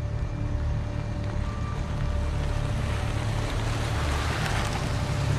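Car engine running with a steady low rumble and road noise as the car drives slowly, the hiss swelling about four seconds in.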